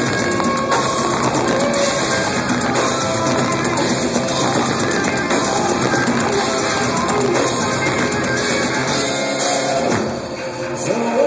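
Live technical death metal band playing: distorted electric guitars, bass and a drum kit at full volume, picked up from the crowd by a handheld camera's microphone. The band drops back briefly near the end before coming in again.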